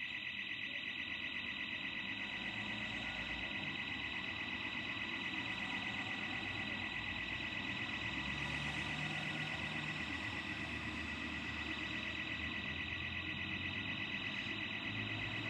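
Burglar alarm sounder going off continuously: a high electronic tone pulsing rapidly, without a break.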